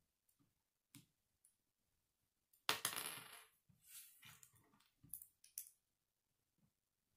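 K'nex plastic pieces clattering and clicking as they are handled and snapped together: a few sharp clicks, a louder rattling clatter about two and a half seconds in, then more rattling and two clicks.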